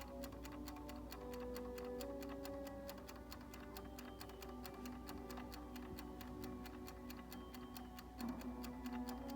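Mechanical kitchen timer ticking rapidly and evenly, over background music with slow held notes.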